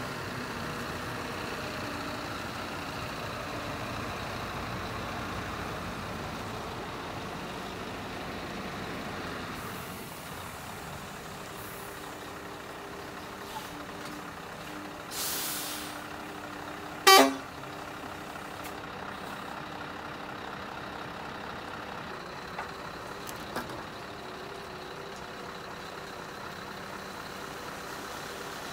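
Scania R620's V8 diesel engine idling steadily. About halfway through there is a short hiss, and just after it a brief, much louder sharp sound with a falling tone.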